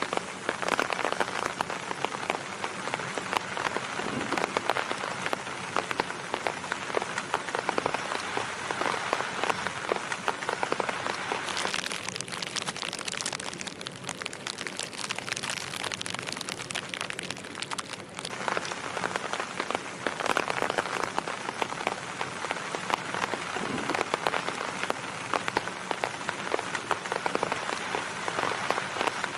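Rain pattering steadily on a tarp shelter, a dense hiss of countless drop hits. For a few seconds in the middle the sound turns thinner and hissier.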